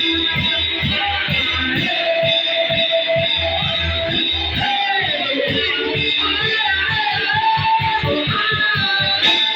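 Church band music: electric guitar lines played over a fast, steady beat.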